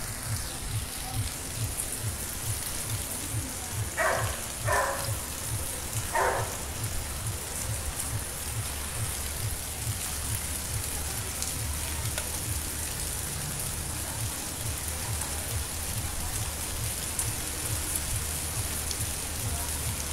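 Steady night rain falling on rooftops and the street, an even hiss. A low, evenly spaced thumping beat of distant music runs under it, and three short, louder sounds stand out about four to six seconds in.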